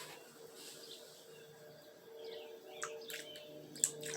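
Faint bird chirps in the background, starting about halfway through, over a low steady hum, with a few light clicks near the end.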